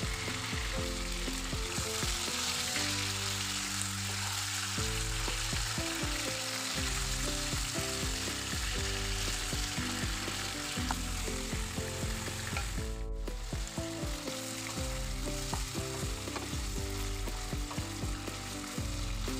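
Raw chicken pieces sizzling in hot oil in a non-stick pan, with a wooden spatula scraping and turning them. Soft background music plays underneath, and the sound cuts out for an instant about two-thirds of the way through.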